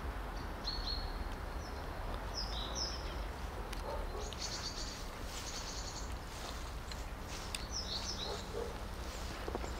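Small birds chirping repeatedly in short high calls, scattered through the whole stretch, over a steady low outdoor rumble.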